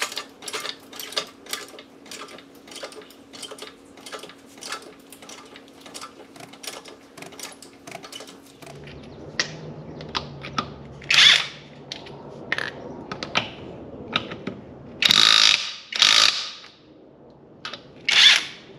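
A floor jack being pumped, clicking rapidly for the first eight seconds or so. Then a cordless impact wrench hammers in four short bursts as it loosens the wheel's lug nuts.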